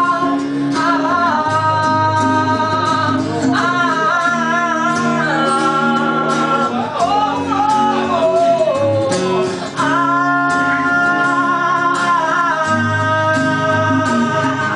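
A woman singing live over a strummed acoustic guitar, holding long, wavering notes with some slides between them.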